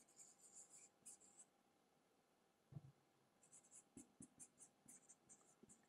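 Faint, scratchy handwriting strokes on a board, in two spells of quick short strokes, with a soft knock a little before the middle.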